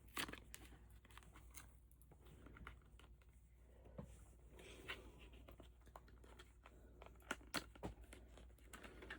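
Faint, scattered clicks and rustles of packaging being handled and opened by hand, with a slightly louder tap just after the start and a few more near the end.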